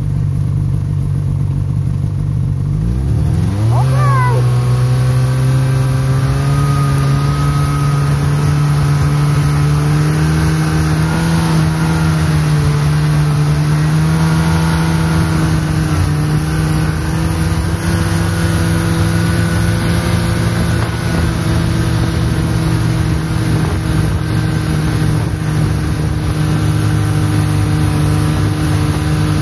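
Snowmobile engine idling low, then revving up about three seconds in as it pulls away, and running steadily at speed.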